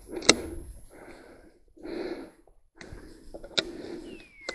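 A person breathing hard, about one loud breath a second, with a few sharp knocks and a short falling whistle near the end.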